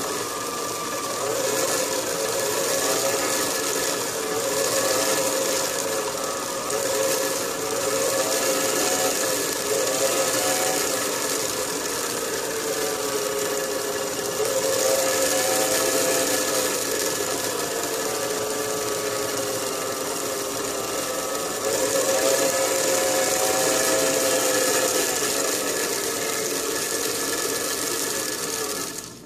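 Small motor-driven cutter spindle running and cutting the leaves of a seven-leaf clock pinion, a steady mechanical whir with wavering tones that grows louder in stretches as the cutter works, then shuts off suddenly at the very end.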